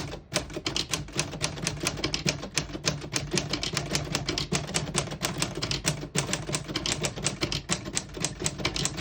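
1935 Corona Standard portable typewriter being typed on steadily: a fast, even run of key strikes, about five or six clacks a second.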